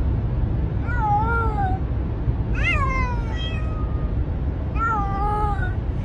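Cat shut in a plastic travel carrier meowing three times, long drawn-out meows that rise and then fall, the plaintive calls of a frightened cat. A steady low rumble from the car runs underneath.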